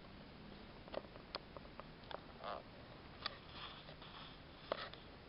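Faint handling noise from a handheld camera being moved over a cardboard model: scattered irregular light clicks with a couple of soft rustles.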